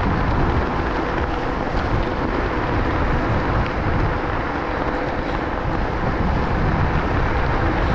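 Steady wind rush on the microphone and tyre noise on asphalt from a Wolf King GT Pro dual-motor electric scooter cruising at speed.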